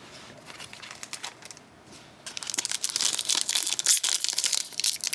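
A trading-card pack's wrapper crinkling as it is handled and opened. There are faint handling ticks at first, then dense, loud crinkling from about two seconds in.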